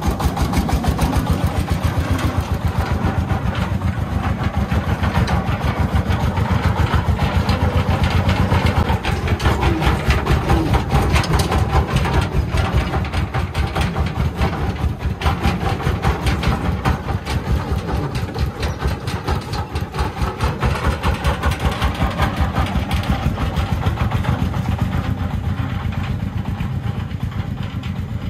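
Công nông farm truck's diesel engine running hard under load, with a rapid, even beat of exhaust pulses that eases briefly about two-thirds of the way through and then picks up again.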